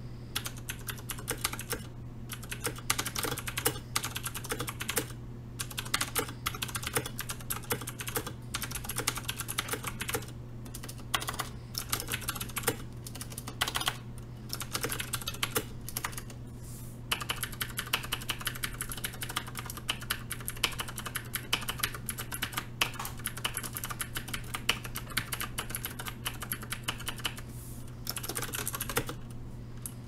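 Continuous fast typing on a Cooler Master MasterKeys S PBT mechanical keyboard with clicky Cherry MX Green switches and PBT keycaps: a dense run of key clicks with a few short pauses.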